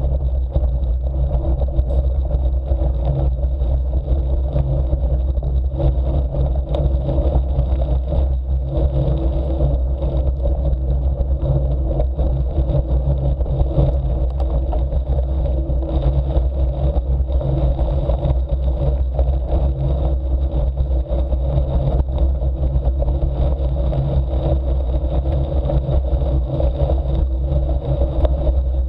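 Steady low rumble of travelling along a gravel forest track at about 16 km/h: tyre noise and wind on the microphone, even and unbroken.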